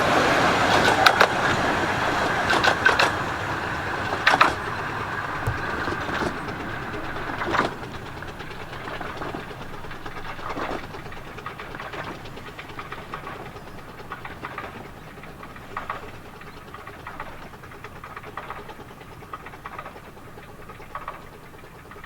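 The 15-inch gauge steam train hauled by the locomotive Dr Syn pulls away and fades steadily into the distance, with a run of sharp clicks and knocks as it goes.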